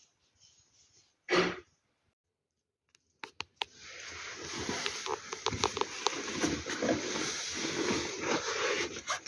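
Tent fabric rustling and scraping with many quick ticks and taps, starting about four seconds in and running on; before that, one short loud sound about a second and a half in amid near quiet.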